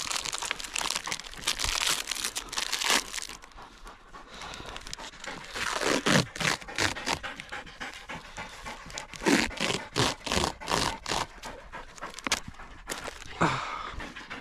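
Greyhound panting hard in quick, even breaths, winded after a chase, mixed with the crinkle and rustle of first-aid packets and gauze being opened by hand.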